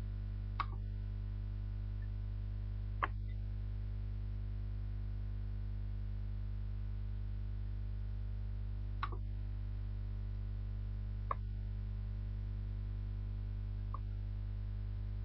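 Steady electrical mains hum with five short, sharp clicks a few seconds apart.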